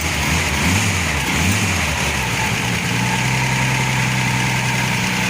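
Ford F-75 pickup's Willys six-cylinder engine idling. Its pitch wavers up and down briefly over the first two seconds, then settles steady.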